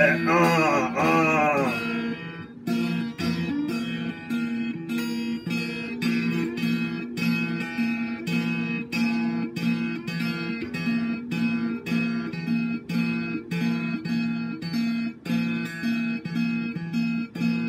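Electric guitar strummed in a steady rhythm, about two strums a second, on the same repeated chord pattern. A short sung line fades out in the first couple of seconds.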